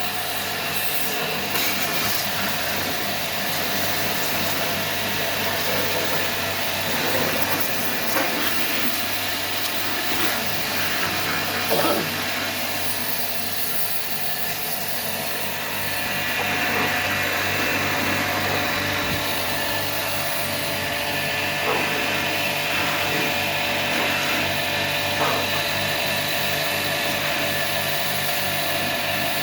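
Pressure washer running steadily, its motor humming under the hiss of the water jet as it sprays a window air conditioner clean.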